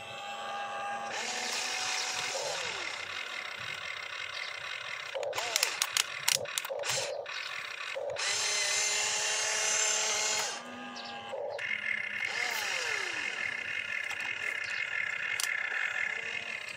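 Small electric motors and gearboxes of an RC excavator whining as it swings its arm and digs, starting and stopping, the pitch rising and falling with each move. A quick run of sharp clicks comes about midway.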